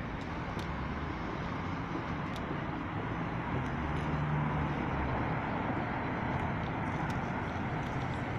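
Steady traffic noise of a city street, with a low engine hum rising briefly about halfway through and a few small clicks.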